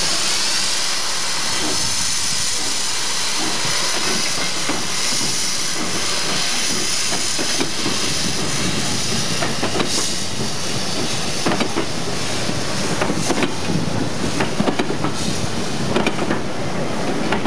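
Steam locomotive letting off steam with a loud, steady hiss, strongest at the start and easing slowly, with scattered sharp knocks in the second half.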